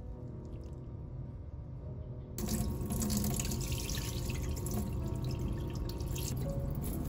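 Water being poured off a bowl of soaked dried gondre (Korean thistle greens) into a stainless steel sink, a steady splashing pour that starts suddenly a couple of seconds in. Before it, wet greens are handled in the bowl.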